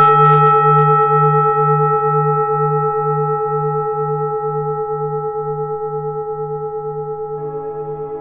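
A large bell struck once, ringing on with a low hum that pulses about twice a second and fades slowly.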